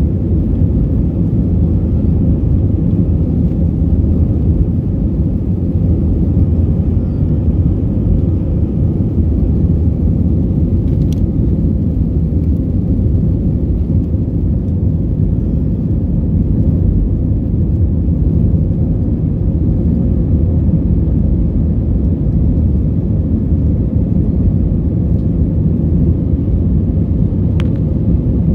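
Steady low rumble of an airliner's jet engines and airflow heard from inside the passenger cabin during takeoff and climb, with a faint steady hum over it.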